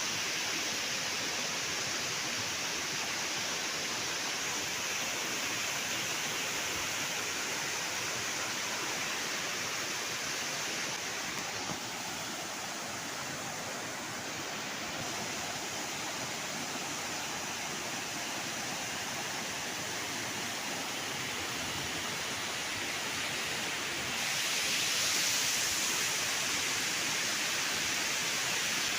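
Waterfall: a steady rush of falling water, growing a little louder and brighter near the end.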